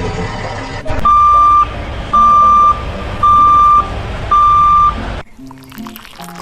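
Truck engine running, then a reversing alarm beeping four times at an even pace, each beep a steady high tone about half a second long. Near the end it cuts off suddenly and music starts.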